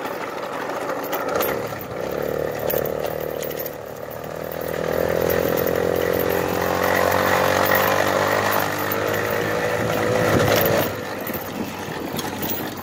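A 1997 Kinetic moped's 49 cc two-stroke engine running under way on a rough trail, its freshly fitted clutch driving. The engine note builds about four seconds in, holds for several seconds and eases off near the end, with bumps from the trail.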